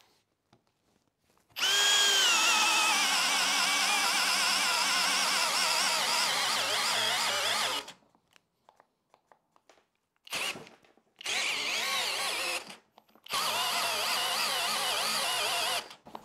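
Hilti SFE 2-A12 12-volt cordless drill driver boring a 19 mm auger bit into a wooden beam. A run of about six seconds starts a second and a half in; its pitch drops as the bit bites and then wavers under load. After a pause come a short burst and two more runs of a second or two.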